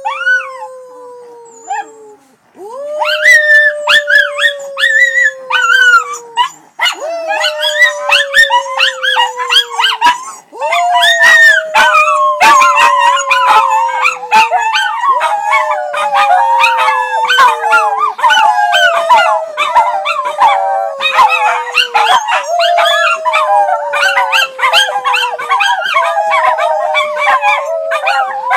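Several miniature schnauzers howling in chorus. A long, slowly falling howl repeats about every four seconds, and higher wavering howls and yips join in after a couple of seconds, growing busier toward the middle.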